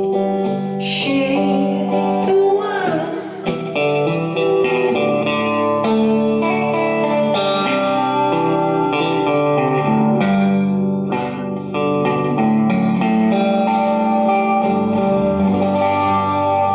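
A band playing live on electric guitars, bass guitar and drum kit, with cymbal crashes about a second in, again a second later, and once more past the middle.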